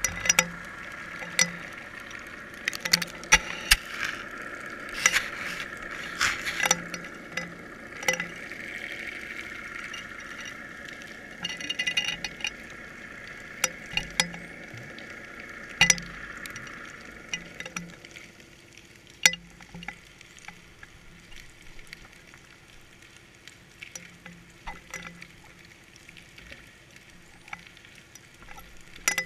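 Muffled underwater sound picked up through a GoPro's waterproof housing on a fishing line: irregular sharp clicks and knocks over a steady high hum. The hum fades and the clicks thin out about two-thirds of the way through.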